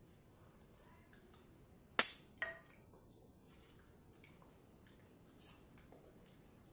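A spoon clinking and scraping against a dish while eating: scattered small clicks, with one sharp, loud clink about two seconds in.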